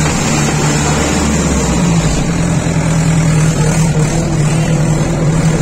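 Mahindra tractor's diesel engine running steadily as the tractor drives through water; its note rises a little about two seconds in.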